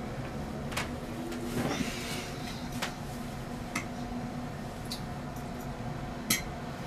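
Scattered light clicks and knocks over a low steady hum, with a brief rustle about two seconds in and a sharper knock near the end.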